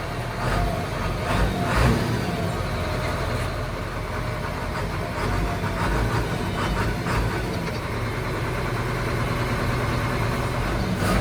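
A large engine idling steadily with a low rumble, and a few light metallic clinks, most of them in the first two seconds and in the middle.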